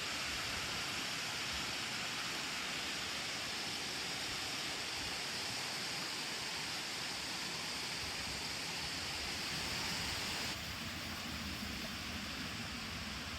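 Steady rushing of water pouring over a weir-waterfall, with an even hiss and no breaks; it drops slightly in level near the end.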